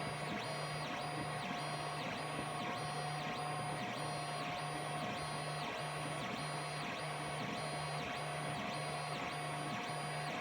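FDM 3D printer running a print: its stepper motors whine steadily, and the pitch pattern repeats about twice a second as the print head moves back and forth across the layer.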